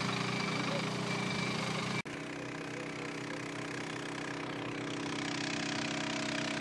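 Fire truck's engine running steadily at idle. About two seconds in, an edit cuts it off abruptly, and a different steady mechanical hum carries on after it.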